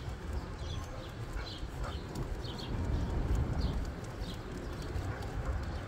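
Walking steps on a concrete sidewalk during a dog walk, with a steady low rumble on the microphone and small birds chirping now and then.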